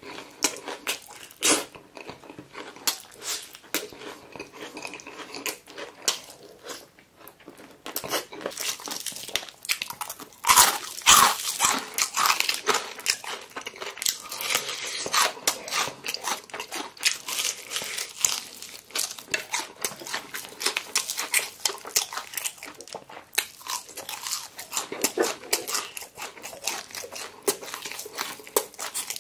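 Close-miked crunching and chewing of crispy fried chicken: scattered chewing sounds at first, then dense, crackling crunches of the fried crust from about eight seconds in as it is bitten and chewed.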